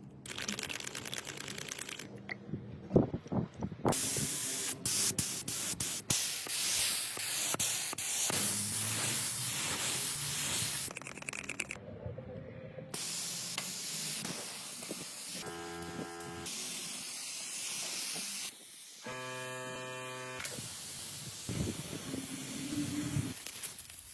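Compressed-air spraying hissing in several cut-together stretches, with a few knocks near the start and a short machine hum twice past the middle.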